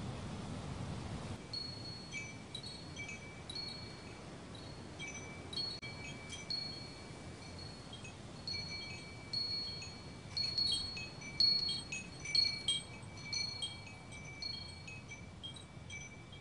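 Chimes ringing: clear, high-pitched metallic tones sounding one or two at a time and hanging on, growing busier and louder about ten seconds in.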